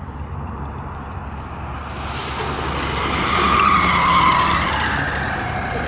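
All-wheel-drive hybrid dirt bike riding past over a grass yard, its wheels spinning and churning up the turf. The drive and tyre noise rises, with a whine in it, as the bike passes close about three to four seconds in, then fades.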